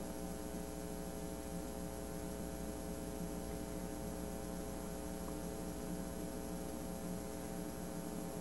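Steady electrical hum with several even overtones and a faint high whine, unchanging throughout; no other sound stands out.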